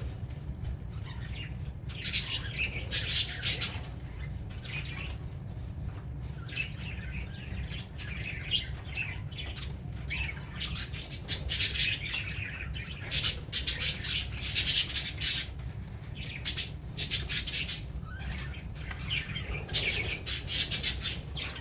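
Several budgerigars chattering, with bursts of rapid, scratchy high chirps and squawks coming and going.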